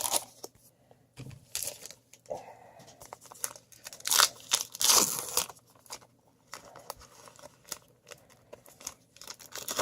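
Baseball card pack wrapper being torn open and crinkled: a series of short rips and rustles, the loudest about four and five seconds in.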